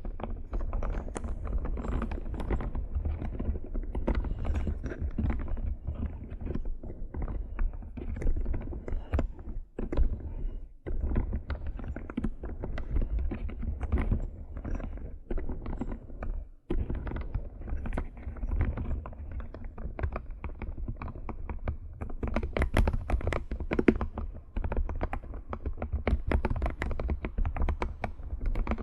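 Computer keyboard being typed and tapped in rapid, continuous strings of clicks, with brief pauses a few times.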